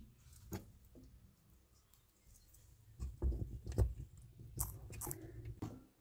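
Scattered small clicks and knocks as a screw and screwdriver are worked into the plastic pulsator hub at the bottom of a washing machine tub, with a denser run of knocks in the second half.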